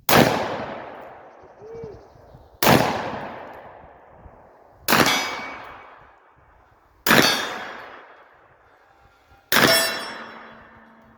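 Five shots from a Taurus Circuit Judge revolving carbine, hammer cocked for each, fired about two seconds apart. Each shot trails off in a long echo.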